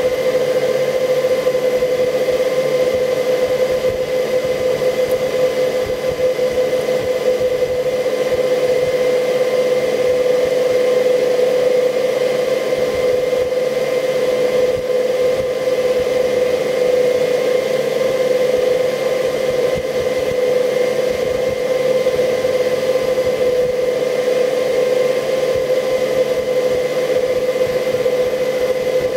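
Incubator fan running with a steady, unbroken hum.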